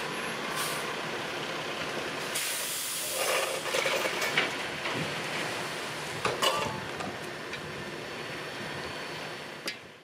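Heavy diesel engines of a dump truck and a backhoe running steadily, with a burst of air-brake hiss about two and a half seconds in, followed by several clanks and knocks.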